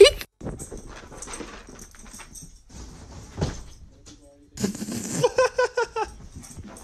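A dog giving a quick run of short, high whimpering yelps, about eight a second for roughly a second and a half, starting about four and a half seconds in; the dog has just tumbled off a bed. The tail of a loud sound from the previous clip cuts off at the very start.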